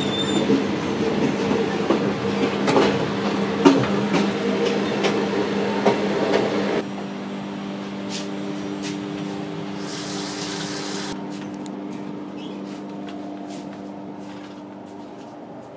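Running noise inside a Thai sleeper train carriage: a steady rumble and hum with rattles and knocks, louder for about the first seven seconds, then dropping suddenly to a quieter hum. A brief hiss about ten seconds in.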